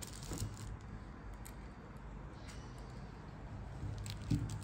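Faint handling noise: a few light clicks and taps as an electrical wire is worked through a metal lamp-arm joint by hand, over a low steady hum.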